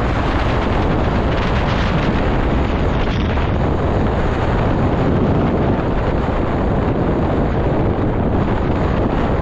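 Strong gusty wind blowing across the microphone, a loud steady roar with no let-up.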